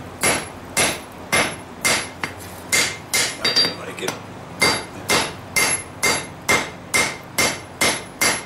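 Blacksmith's hand hammer striking hot steel on an anvil in a steady rhythm of about two blows a second, each with a short metallic ring. The steel is a lawnmower blade being forged into a kukri, with its tip being bent back.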